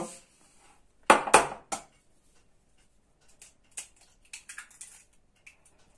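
A hen's egg knocked against the rim of a glass bowl, three sharp taps close together about a second in as the shell cracks. Faint small clicks follow as the shell is pulled apart.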